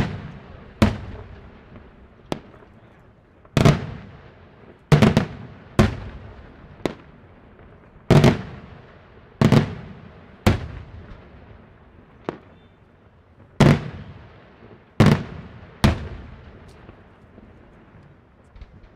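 Daytime fireworks shells bursting overhead in coloured smoke. They go off as a series of loud, sharp bangs, each followed by a rolling echo, about a dozen at uneven intervals of one to two seconds. The bangs thin out near the end.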